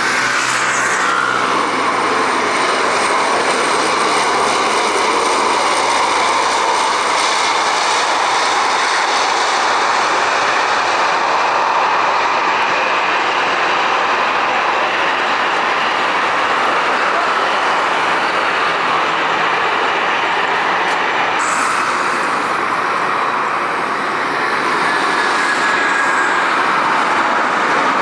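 Military aircraft engines running loudly at the airfield, a steady noise with no distinct tones that changes abruptly about three quarters of the way through.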